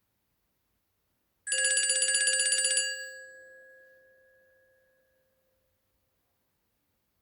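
Nokia C5-03 ringtone in the sound of an old telephone bell: one burst of fast ringing starting about a second and a half in, lasting about a second and a half, then ringing out and fading away.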